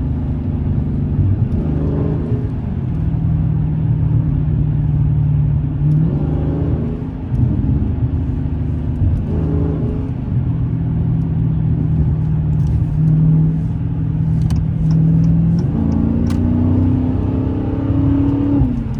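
Dodge Scat Pack's engine and exhaust running loud under way, a steady note that rises in pitch several times as it accelerates, with a longer climb near the end before dropping back.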